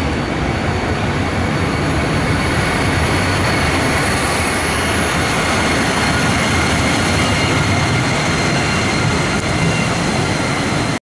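SBB Re 4/4 II electric locomotive running past on the rails, a steady loud rolling noise of wheels on track with a faint high-pitched whine.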